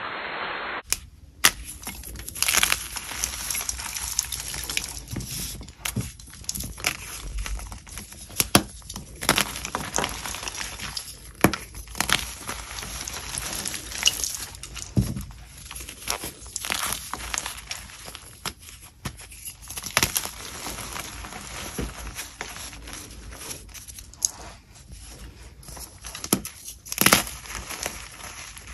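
Pieces of dyed and plain chalk crunching as they are bitten and chewed, in a dense string of irregular crisp cracks and crunches that starts about a second in.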